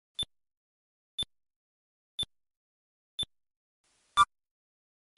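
Short electronic beeps, one a second, each marking a month ticking by on the timeline counter. About four seconds in comes a louder beep with an added lower tone, falling where the counter turns from 1945 to 1946.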